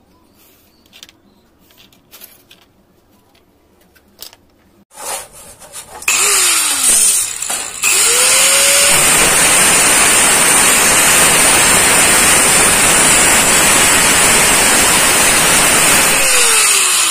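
Faint pen scratches and ticks while a cutting line is marked on an aluminium sheet, then an angle grinder with a thin cutting disc starts about six seconds in, briefly slows and spins up again, and cuts steadily through the aluminium sheet. Near the end it is switched off and winds down with a falling whine.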